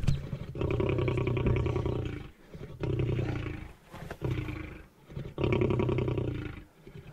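Lion growling at the hunters in about four long, rasping bouts with short pauses between them: the warning growls of a lion at bay, standing its ground.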